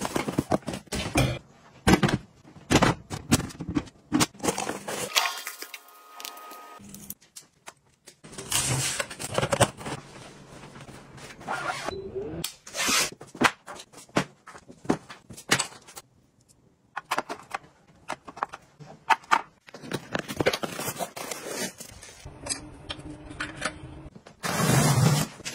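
Handling sounds of household gadgets: a cardboard box being opened, then a string of clicks, taps and scrapes as plastic appliances are handled and pressed.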